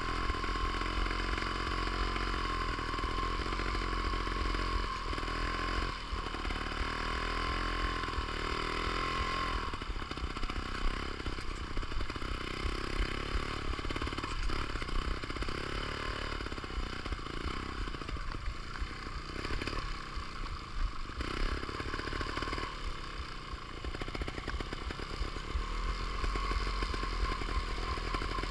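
Trials motorcycle engine running at low revs while the bike is ridden along a rough dirt trail, its pitch rising and falling again and again with the throttle.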